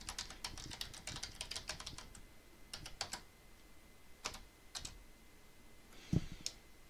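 Typing on a computer keyboard: a quick run of keystrokes for about two seconds, then a few scattered key presses. A dull thump, the loudest sound, comes near the end.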